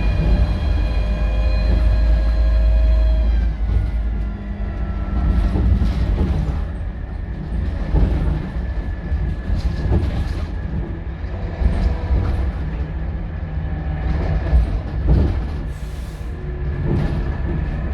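Scania K230UB single-decker bus heard from on board, its five-cylinder diesel and drivetrain running under way. A whine climbs in pitch as the bus accelerates, then drops away about three and a half seconds in; after that it runs on with a low engine drone and scattered knocks and rattles from the body.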